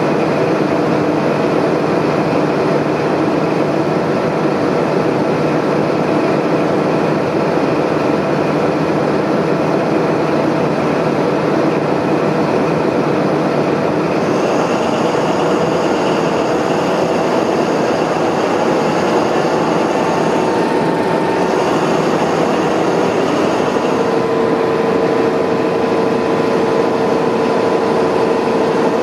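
Diesel engine of a Class 43 HST power car running at a station platform with a steady drone. About halfway a high whine comes in, breaks off briefly and stops, and a rising tone then settles into a steady higher pitch near the end.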